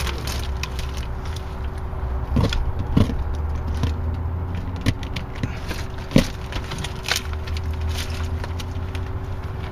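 A steady low hum, with a handful of sharp knocks and scrapes from hands working the foam-filled bag and loose shale against the steel bat gate.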